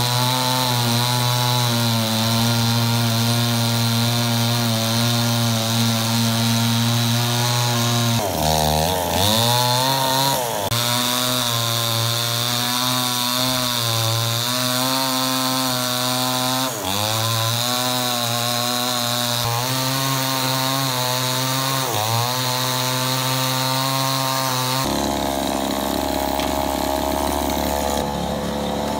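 Two-stroke chainsaw running at high revs while cutting through a log. Its engine pitch drops for a moment several times as it loads up in the cut, then recovers. A little before the end the sound switches abruptly to another chainsaw running.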